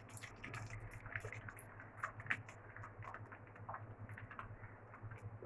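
Beaten eggs frying in hot oil and butter in a frying pan: faint, irregular crackling and spitting, over a low steady hum.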